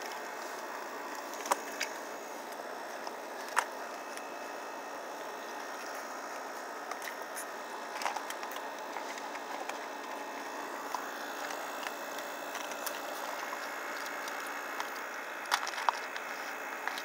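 Raccoon kits eating crackers and rummaging in plastic food tubs: scattered sharp clicks and crunches, a few at a time, over a steady background hum.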